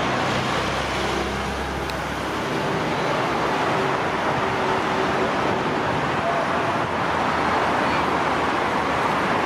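Steady road traffic noise, an even rushing sound with no distinct events.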